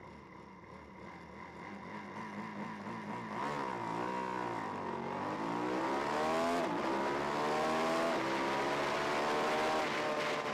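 Twin-cylinder race motorcycle engine accelerating hard, revs climbing and dropping back with each upshift, several times in the second half, over wind rush on the onboard camera. The sound fades up over the first few seconds.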